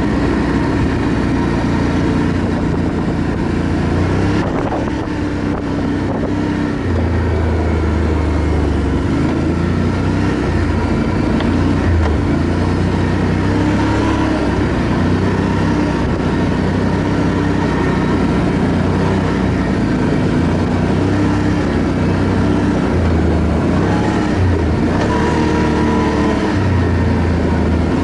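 ATV engine running under way, its pitch rising and falling as the throttle changes.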